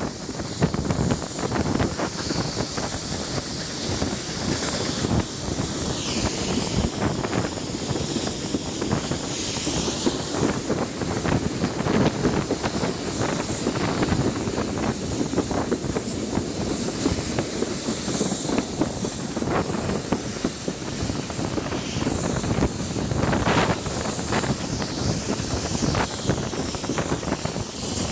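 Steam train running, heard from a carriage window: a steady rumble and close clatter of wheels on the track under a continuous steam hiss that swells now and then.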